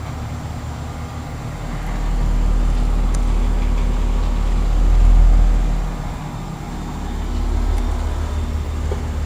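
Bryant Evolution two-stage heat pump running in cooling mode: a steady hum from the compressor and condenser fan. A deep low rumble swells from about one and a half to six seconds in, then eases off.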